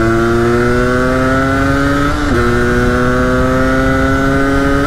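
Yamaha DT125X's two-stroke single-cylinder engine pulling under acceleration. The revs climb steadily, drop at an upshift about two seconds in, and climb again.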